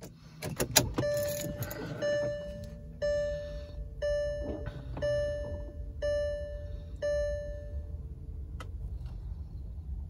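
Ignition key clicks, then the VW Touareg's dashboard warning chime sounding seven times, about once a second, over a steady low hum.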